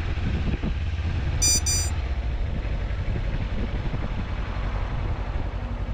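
Kawasaki Versys 300 motorcycle's parallel-twin engine idling with a steady low rumble. About a second and a half in, two short high-pitched beeps sound.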